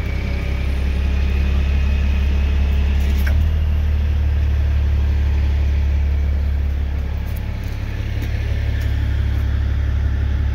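A truck engine idling steadily with a deep, low rumble that eases off a little about seven seconds in.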